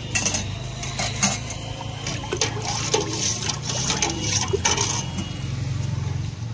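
A steady low engine-like hum under a string of sharp clicks and short hissing noises.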